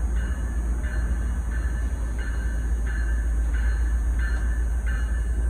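Norfolk Southern diesel locomotive running light, approaching with a steady low rumble while its bell rings about every 0.7 seconds.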